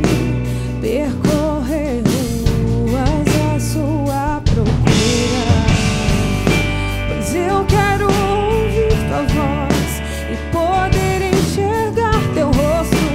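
A band performing a song: drum kit, other instruments and a singing voice carrying a wavering melody.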